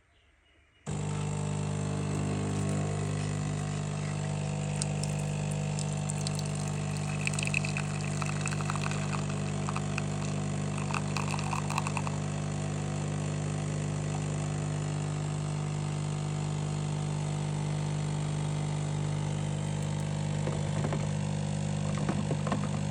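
De'Longhi Eletta Explorer coffee machine's pump starting suddenly about a second in and running with a steady buzzing hum as it pumps water, with some brief higher liquid sounds in the middle.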